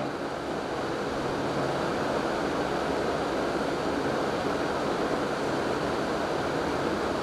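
Steady, even background hiss with no distinct strokes or tones.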